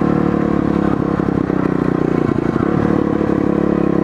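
Pit bike's small engine running steadily under way as it rides down the street, its note briefly wavering about halfway through.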